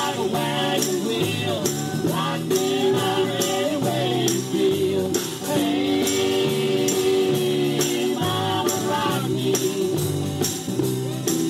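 Live country-rock band playing: bass and acoustic guitar under a sliding melody line, with bright percussion hits keeping a steady beat.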